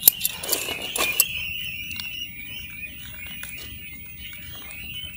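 A flock of young ducklings peeping together in a steady high chorus, with a few sharp clicks in the first second or so.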